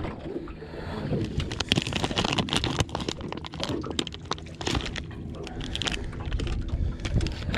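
Plastic packet of soft-plastic fishing lures crinkling and rustling as hands dig into it and pull a lure out: a dense run of small crackles and clicks.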